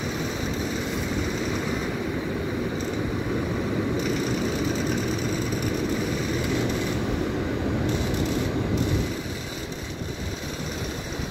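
A vehicle engine running steadily, a low rumble that eases off slightly near the end.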